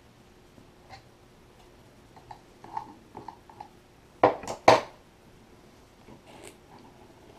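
Hands handling headphone parts during an ear cushion replacement: a few light clicks and taps, then two loud, short scraping rasps a little over four seconds in, followed by softer rustling.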